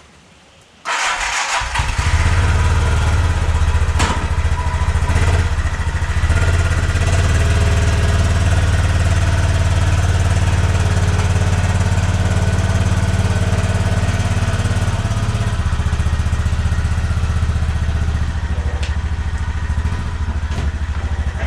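A 1986 Chevrolet Monte Carlo SS's V8 starting up about a second in and running with a loud, steady low rumble. The engine note drops slightly about 15 seconds in.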